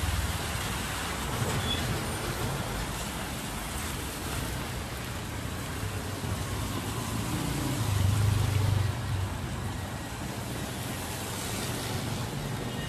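Street traffic on a rain-wet road: motorbike and car engines running under a steady hiss of tyres on wet asphalt, with one vehicle passing louder about eight seconds in.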